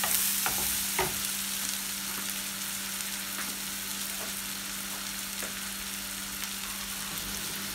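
Onion and tomato masala sizzling steadily in a frying pan over a gas flame, with a few scrapes and taps of a wooden spoon stirring it in the first second or so.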